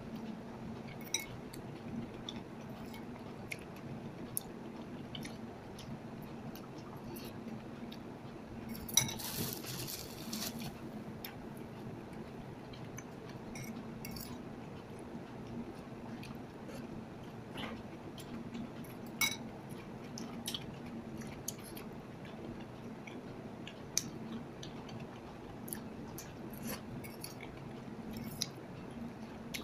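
Close-up eating sounds: noodles being chewed and slurped, with scattered sharp clicks of a metal fork against a ceramic bowl. About nine seconds in comes a louder, hissy burst lasting a second or so.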